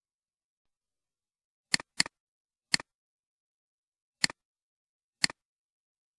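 Five computer mouse clicks, each a sharp press followed by a quick release, spaced irregularly over a few seconds against dead silence.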